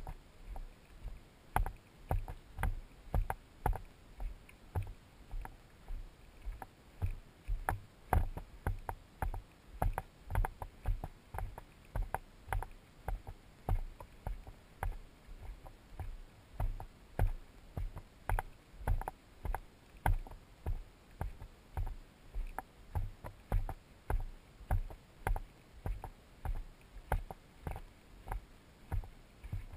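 Footsteps on a dirt and stony trail at a steady walking pace, about two steps a second, each with a low thud.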